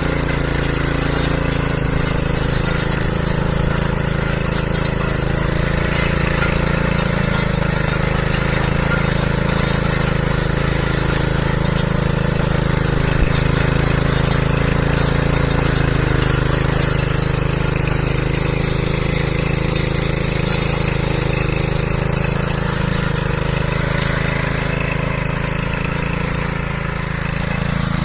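Farm cultivator's engine running steadily, an even engine drone with no change in speed.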